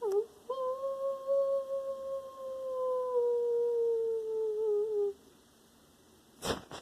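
A single long howl, held about four and a half seconds, its pitch sinking slowly and wavering just before it stops. Two short clicks near the end.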